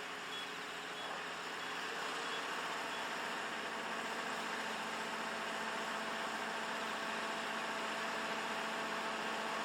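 Kubota five-row combine harvester running steadily, its engine and threshing machinery making a constant drone. A faint high beep repeats about every two-thirds of a second during the first three seconds.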